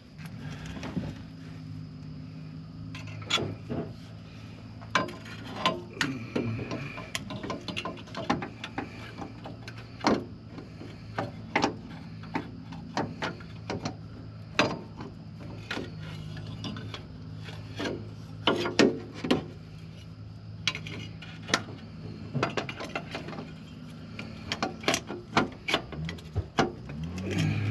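Hand tools on a starter motor: irregular metallic clicks and clanks of a socket wrench and ratchet as the starter's bolts and cable nuts are fastened, over a steady low hum.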